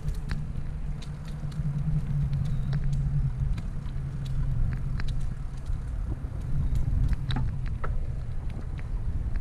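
Steady low rumble of a bicycle rolling over concrete and brick paving, heard through a camera mounted on the bike, with scattered light clicks and rattles throughout.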